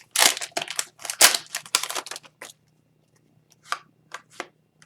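Foil wrapper of a hockey card pack crinkling and tearing open for about two and a half seconds, then a few brief rustles as the cards are handled.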